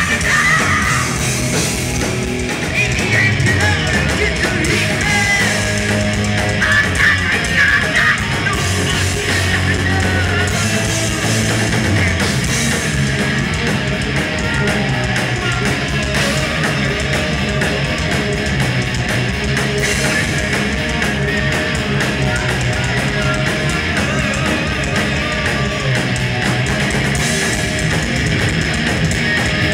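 Heavy metal band playing live at full volume: distorted electric guitars over bass and drums.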